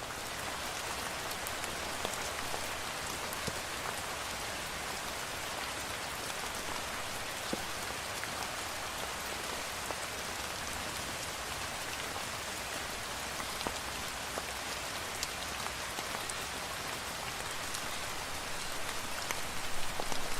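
Steady rain falling on a surface: an even hiss with scattered ticks of single drops.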